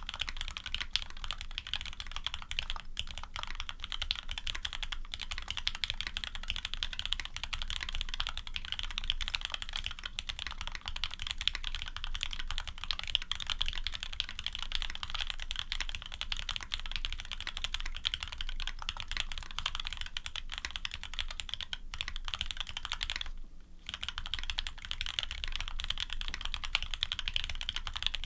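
Typing on a Serratus custom mechanical keyboard with lubed switches (Cherry top housings with H1), an aluminium plate and GMK keycaps: a dense, continuous stream of key clacks, with a brief pause about 23 seconds in.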